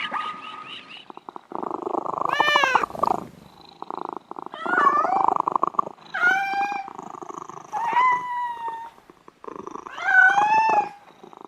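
Domestic cat meowing about five times, each call bending in pitch, with a rough, pulsing purr running between and under the meows.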